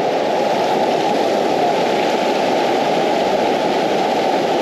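Steady rush of a fast, rocky river running through white-water rapids.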